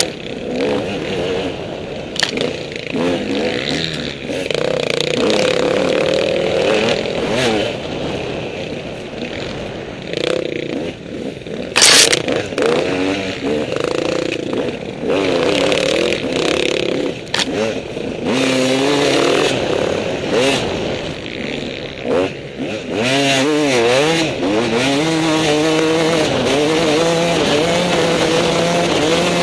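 KTM 200 EXC two-stroke enduro bike running on a rough trail, its revs rising and falling constantly, with clatter and scrapes from the rocky ground and a loud bang about twelve seconds in. Near the end the engine settles to a steadier, higher pitch.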